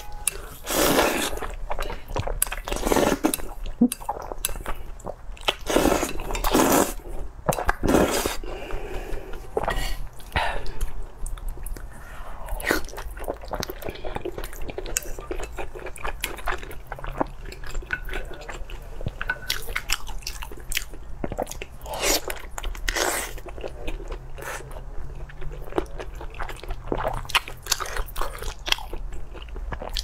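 Close-miked eating: wet chewing, biting and mouth sounds as spicy noodles and sauce-glazed braised meat are eaten, with a series of louder bursts in the first several seconds and softer, irregular smacks and clicks after that.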